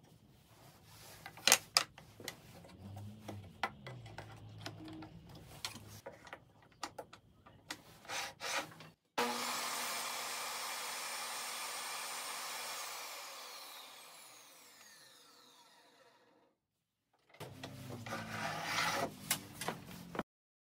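Clicks, knocks and rubbing of a wooden miter-gauge jig and its plastic mini clamp being handled on a table saw. Then a table saw runs steadily and, after being switched off, spins down, its pitch falling as it fades out. A short burst of the same handling clatter comes near the end.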